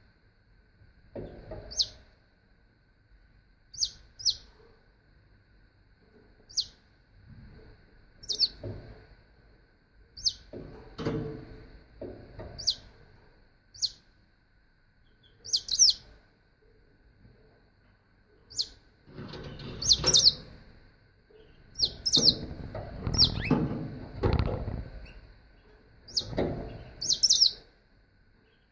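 Canary giving short, high chirps every second or two rather than a sustained song. Duller, lower noises come between the chirps and are busiest in the second half, over a faint steady whine.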